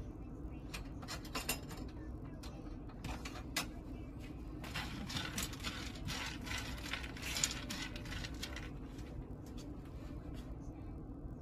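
Peanuts and fox nuts (phool makhana) dry-roasting in a nonstick frying pan, stirred with a silicone spatula. Scattered light clicks give way midway to a few seconds of rattling and scraping, over a steady low hum.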